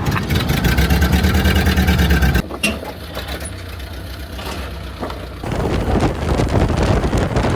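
1929 Ford Model A's four-cylinder engine running, with a fast, even low firing pulse. About two and a half seconds in it cuts abruptly to a quieter stretch of vehicle noise, which grows louder again after about five and a half seconds.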